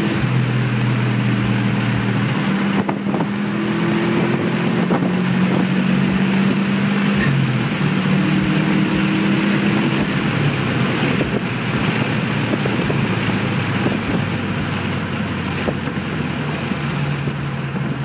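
A 2013 Subaru WRX, heard from inside the cabin, driving at speed with its turbocharged flat-four and aftermarket catless downpipe and cat-back exhaust droning steadily under road and wind noise.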